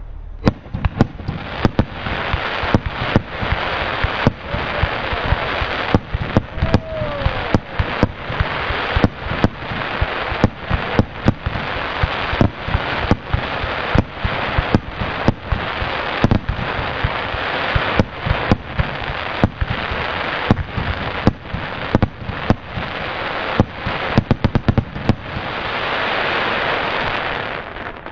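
Raccoon Fireworks 42-shot, 1.2-inch consumer cake firing in quick succession. Sharp shots and bursts come about once or twice a second over a continuous dense crackle from the crackling willow breaks. The crackle swells near the end, then dies away as the cake finishes.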